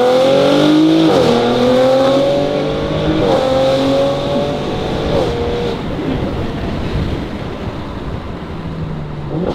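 2023 Audi RS5's twin-turbo V6 breathing through 034 Motorsport downpipes and an AWE Touring exhaust, accelerating hard through the gears. The engine note climbs and drops sharply at each of three quick upshifts about two seconds apart, then eases off after about six seconds into a lower, rougher exhaust rumble.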